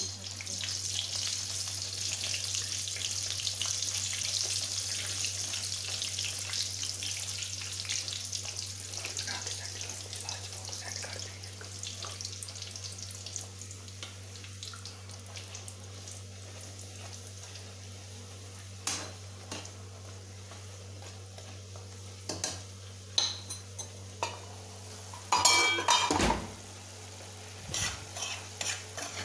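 Food frying in hot oil in a metal pan, a loud sizzle that fades over the first ten seconds or so. Later a spoon knocks and scrapes against the pan as the food is stirred, loudest about 26 seconds in. A steady low hum runs under it all.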